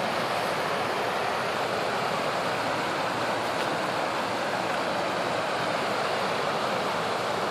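Creek water rushing steadily over and between stone stepping stones, a constant white-water hiss.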